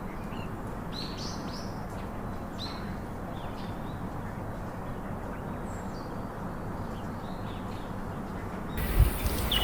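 Small birds chirping: short, scattered high calls, several a second at times, over a steady low hiss of background noise.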